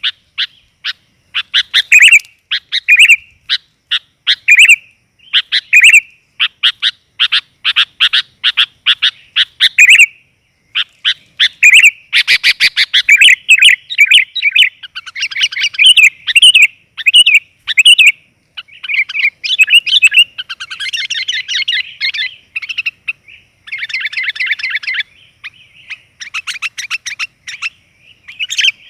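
Sooty-headed bulbul (kutilang) singing energetically in rapid bursts of short, bright chirps, with brief pauses and denser chattering runs partway through. This is a lure recording of female calls, meant to draw in males.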